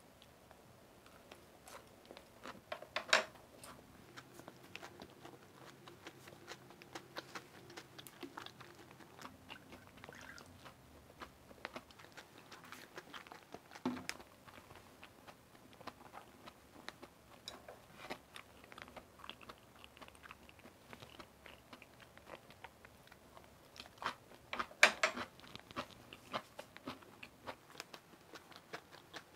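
Close-miked chewing and crunching of a crispy Korean chive pancake (buchujeon): many small wet clicks and crunches, with a few louder clusters of clicks about three seconds in, around fourteen seconds, and near twenty-five seconds.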